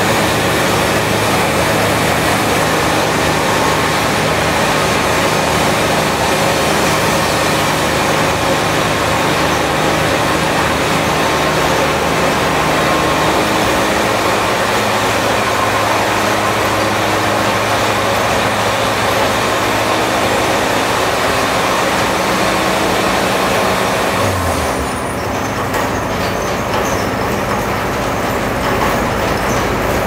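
Wood-Mizer band sawmill running steadily, an engine note under a loud hiss. About 25 seconds in the hiss falls away and the engine note briefly shifts.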